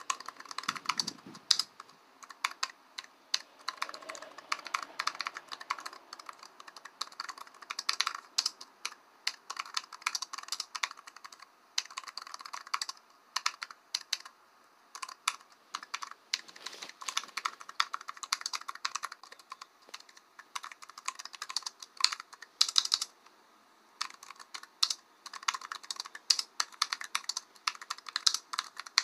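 Typing on a computer keyboard: quick runs of key clicks with a few short pauses between bursts.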